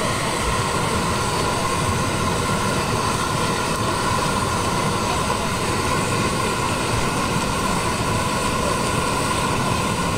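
A steady mechanical drone with several high, unchanging whining tones.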